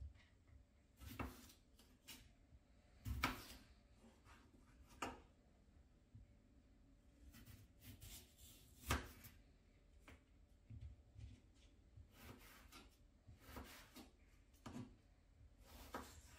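Knife slicing through a raw potato and knocking on the cutting board: irregular sharp, faint knocks, the loudest about three seconds in and about nine seconds in.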